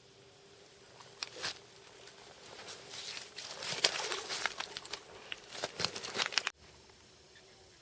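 A run of rustling, crackling and slapping noises that builds to its loudest about halfway through and cuts off abruptly near the end.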